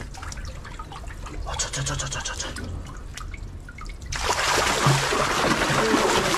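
Quiet trickling and small splashes in shallow water, then about four seconds in a loud rush of water suddenly starts from a large pump hose and runs on steadily.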